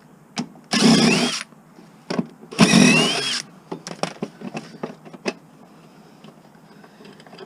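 Cordless drill driving a socket in two short bursts, its motor whine rising in pitch each time as it spins up, backing out bolts from a lawn mower. Light clicks and clinks of metal parts follow.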